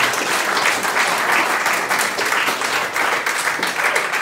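An audience and a choir applauding together, many hands clapping at a steady level.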